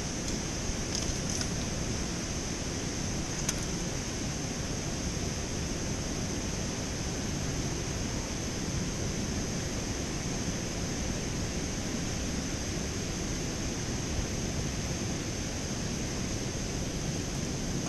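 Steady rushing outdoor noise with no breaks, with a few faint clicks in the first few seconds.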